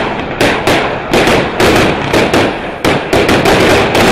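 Celtic Fireworks Blitzkreig, a fanned single-ignition rocket barrage, firing: a rapid string of loud bangs, about four a second, as the shots burst overhead.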